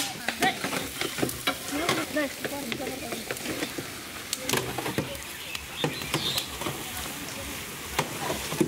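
Long-handled metal spatulas scraping and knocking irregularly against a large steel pan as boiled banana is stirred and mashed, over a steady sizzle of oil frying in the pan.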